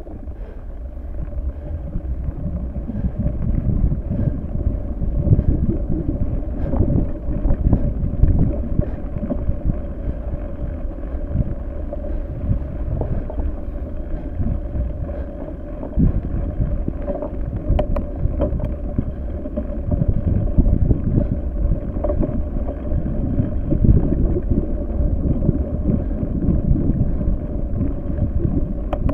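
Wind buffeting the microphone in gusts, over a steady hum.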